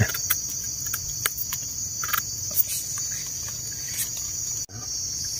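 A steady, high-pitched insect chorus, with scattered light clicks and scrapes from a knife trimming a mushroom stem among dry leaves. A short break comes near the end.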